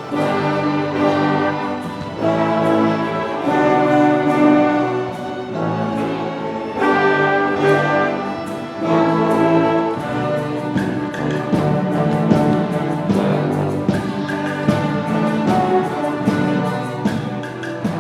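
An orchestra with bowed strings playing held chords that change every second or two, with short rhythmic accents between them.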